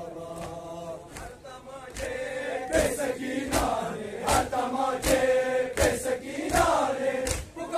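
A crowd of men chanting a Muharram mourning lament in unison, louder from about two seconds in, with sharp rhythmic slaps of chest-beating (matam) about every three-quarters of a second.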